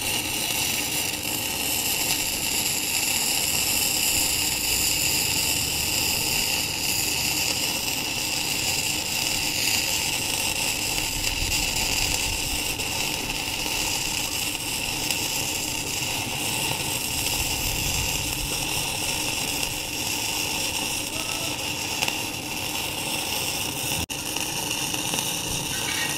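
Gasless flux-cored MIG welding arc from an NBC 288 welder set to 175 amps, running steadily as a bead is laid on 10–12 mm steel plate.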